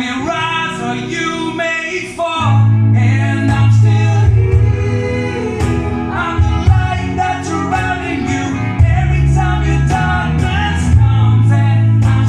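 Live rock band playing a song, with a male lead voice singing over the band. About two seconds in, the bass and drums come in and the sound gets louder and fuller.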